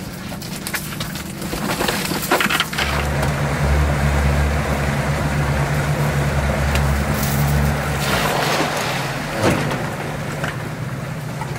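Pontoon boat's motor running at a steady speed, strongest from about three seconds in to about eight seconds in, over a steady rushing noise.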